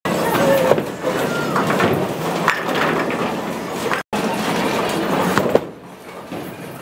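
Bowling alley din of balls rolling and pins clattering, with a sharp knock near the end as a bowling ball is released onto the lane; after that it goes quieter.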